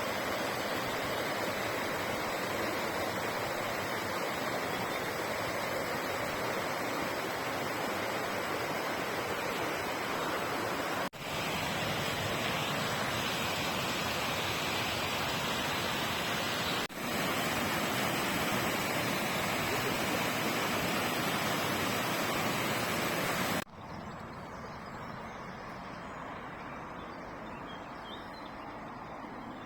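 Waterfall rushing: steady noise of falling water, broken by short cuts about 11 and 17 seconds in, dropping to a quieter, softer rush for the last few seconds.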